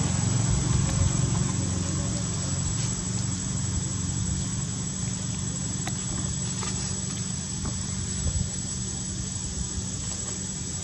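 Steady outdoor background: a thin, constant high-pitched insect drone over a low rumble, with a few faint clicks.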